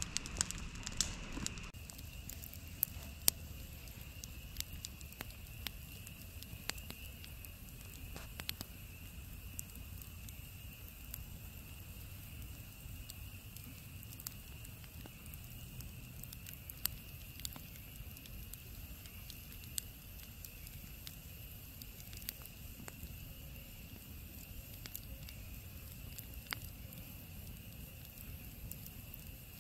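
Wood fire crackling, with scattered sharp pops, a few a second at first and sparser later, over a faint steady hiss.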